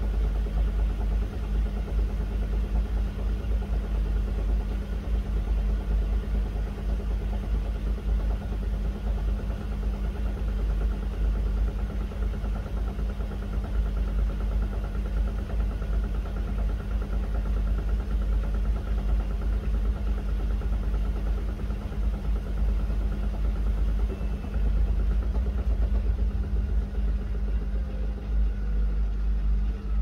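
Miele W1 front-loading washing machine running, with a steady motor hum over a heavy low rumble. Near the end the motor's pitch starts to fall.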